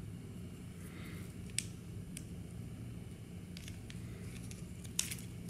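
Small plastic toy pieces clicking and rubbing as they are handled and fitted together by hand: a few faint, short clicks, the sharpest about five seconds in, over a low steady room hum.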